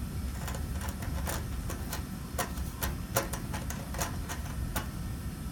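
Allen key working the hex screws of an electric range's terminal block loose: light, irregular clicks of the key against the screws, a dozen or so, over a low steady hum.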